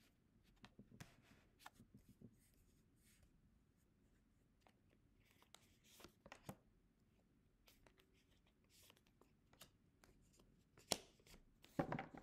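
Tarot cards being shuffled and dealt onto a marble tabletop: faint, scattered rustling and light card taps, with a sharper snap about eleven seconds in and a quick cluster of taps near the end.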